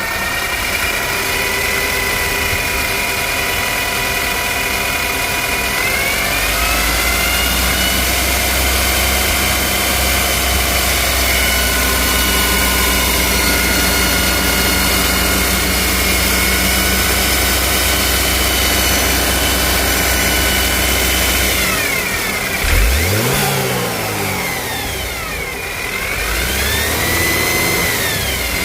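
BMW N20 2.0-litre turbocharged four-cylinder engine running, with a steady high-pitched whistle over it. The whistle rises in pitch when the revs come up about six seconds in, then dips and sweeps up and down again near the end as the engine is revved. The whistle is typical of a worn or slack oil pump chain drive on the N20.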